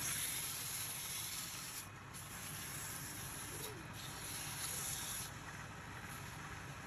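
Sandpaper hissing against a wooden spindle spinning on a lathe, over the lathe's steady low hum. The hiss breaks off briefly about two seconds in and again near four seconds, and fades after about five seconds as the pressure comes off.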